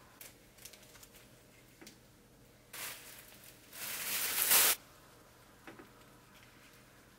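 Crinkling, tearing plastic food packaging in two bursts, a short one and then a louder, longer one that builds and stops suddenly, with a few light taps around them.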